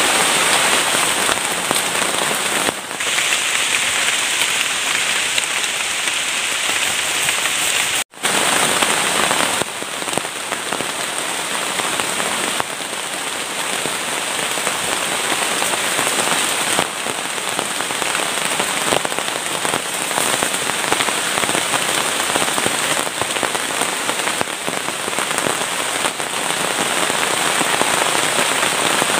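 Heavy tropical rain pouring steadily, drumming on a plastic tarp overhead and on the surrounding leaves. The sound cuts out for a split second about eight seconds in.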